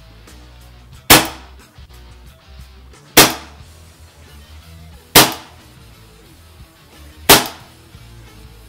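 WE Makarov PMM gas blowback airsoft pistol firing four single shots about two seconds apart, each a sharp crack of the gas release and the slide cycling. It is fired in its standard setup, without the suppressor or extended inner barrel. Background music plays underneath.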